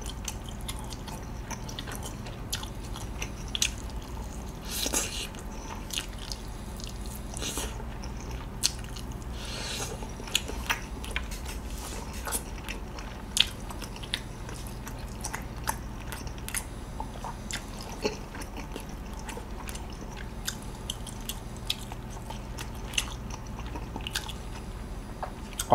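Close-miked chewing and biting of a sauced charcoal-grilled chicken skewer: a steady run of small mouth clicks and smacks, with a few louder bites about five, seven and ten seconds in, over a low steady hum.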